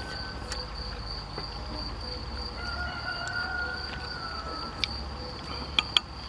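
Steady high-pitched insect chirring, typical of crickets in the grass. A faint wavering tone comes through in the middle, and a few sharp clicks near the end come from eating at the table.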